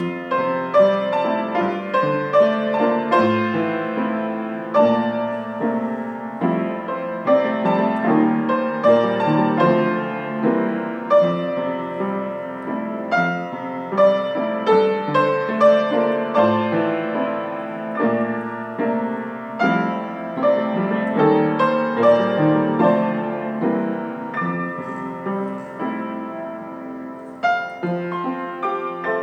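Piano music: a steady flow of struck notes and chords, starting suddenly.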